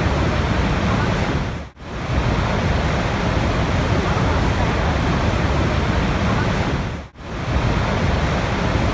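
Steady rushing water, an even hiss with a low rumble, that fades away briefly almost to silence twice, about two seconds in and again about seven seconds in.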